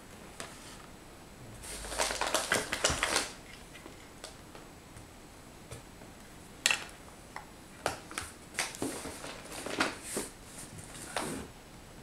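Packaging rustling and crinkling inside a cardboard box in a dense run about two seconds in, then scattered sharp clicks and short rustles as small metal cat food tins are handled and stacked.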